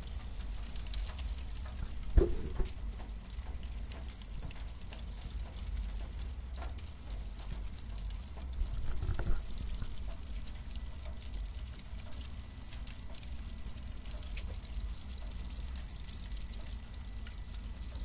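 Cardboard burning: a steady crackle of small sharp snaps over a low rumble of flame, with two louder pops, about two seconds in and again about nine seconds in.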